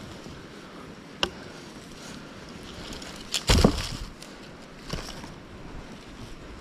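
Knocks and thuds of birch wood being worked by hand: a sharp knock about a second in, a heavy thud just past halfway that is the loudest, and a lighter knock a little later.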